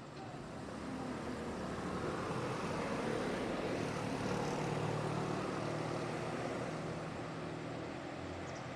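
A vehicle passing with its engine running: a steady hum under a rushing noise that swells for about four seconds, then slowly fades.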